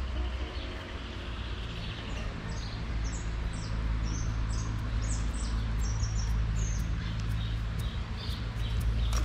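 Small birds chirping: many short, high calls in quick succession starting about two seconds in, over a steady low rumble.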